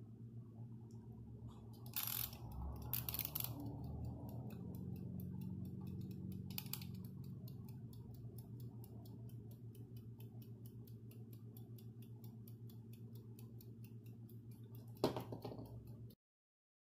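Mechanical wind-up kitchen timer: its dial is twisted, then it ticks rapidly and evenly as it counts down. A sharp knock about 15 seconds in, as it is set down on the counter.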